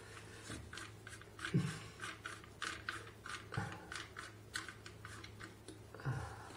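Chrome washbasin drain trap being taken apart by hand: a run of small metal clicks and scrapes as the slip nut and fittings are twisted loose and slid off the pipe.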